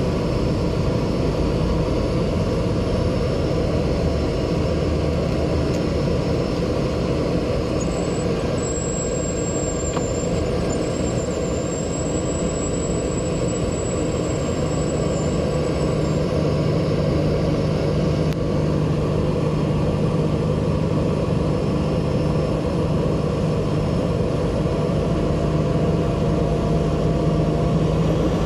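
Cessna 208B Grand Caravan's PT6A turboprop engine and propeller running steadily at low power, heard inside the cabin as an even drone. A faint high whine comes in for several seconds partway through.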